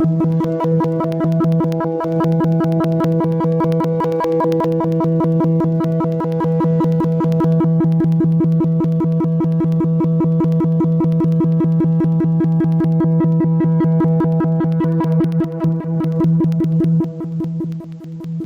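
Conch shell trumpet blown in one long note at a steady pitch, starting abruptly and wavering as it fades near the end.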